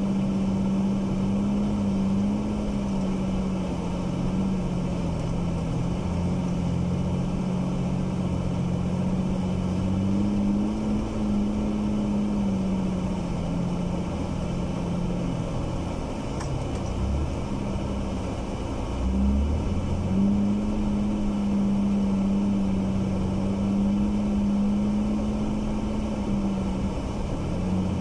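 Jeep TJ engine running steadily at low speed while driving in snow, a steady hum that wavers slightly in pitch and dips briefly about two-thirds of the way through, over a constant rushing noise.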